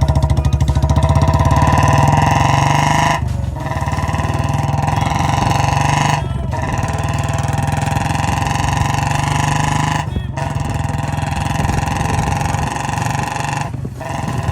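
Royal Enfield Bullet single-cylinder engine, converted from BS6 to a BS3 setup, running as the motorcycle pulls away in first gear and goes up through the gears. The engine sound dips briefly four times, at the gear changes.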